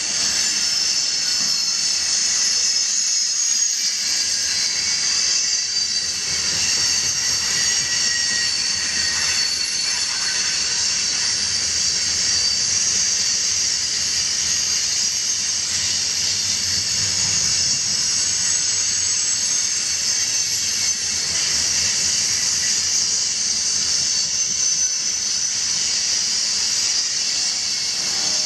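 Loaded coal gondola cars of a freight train rolling steadily past: a continuous rumble of steel wheels on rail under a steady high-pitched wheel squeal and hiss.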